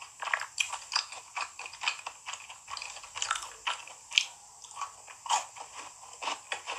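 Close-miked eating: chewing and biting with many small wet mouth clicks and crackles, irregular, with one sharper click about four seconds in.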